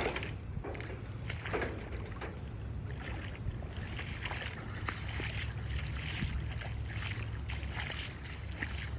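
Footsteps sloshing through shallow muddy floodwater, a splash every half second to a second, over a steady low rumble of wind on the microphone. A sharp knock sounds at the very start.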